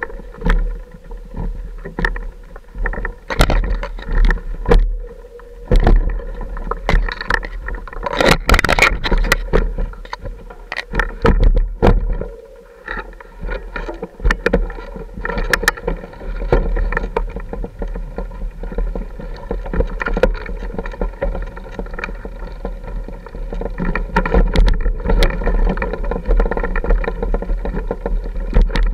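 Mountain bike ridden over a rough, rocky dirt trail, heard from a camera carried along on the ride: constant jolts, knocks and rattles from the bike and camera over the rocks, with tyre and wind noise. The knocks are thickest in the first half and give way to a steadier rumble later on.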